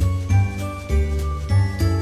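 Instrumental music: a low bass note about every half second under high, ringing, bell-like notes.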